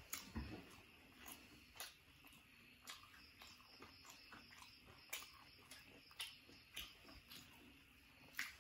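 Faint close-up eating sounds: quiet chewing with scattered short wet mouth clicks and smacks.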